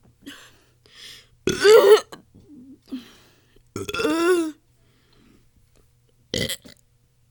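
A person burping deliberately: three loud burps, two long ones about a second and a half and four seconds in, and a short one near the end, with faint small sounds between them.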